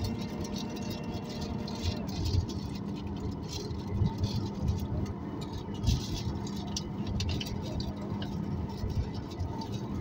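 Cabin noise of a Boeing 737 MAX 9 taxiing after landing: a continuous rumble with irregular bumps from the wheels rolling over the taxiway, light rattling of interior fittings, and a steady hum that sets in about two seconds in.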